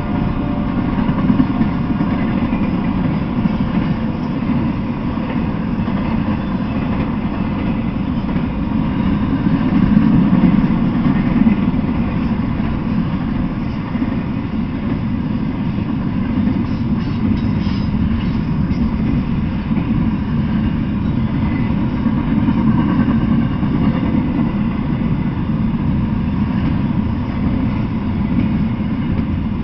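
Intermodal freight train rolling past, a steady low rumble of its cars' wheels on the rails, swelling a little about ten seconds in.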